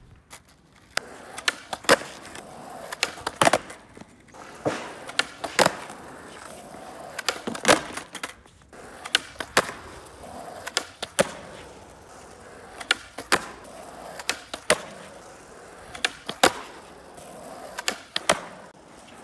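Skateboard wheels rolling on asphalt, with sharp wooden clacks over and over as the tail is popped for ollies and the board lands back on the wheels.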